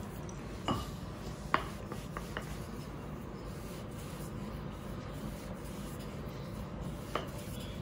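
Hands pressing a cornstarch-dusted ball of phyllo dough flat, then a wooden rolling pin rolling it out on the countertop: faint rubbing, with a few light taps in the first few seconds and one more near the end.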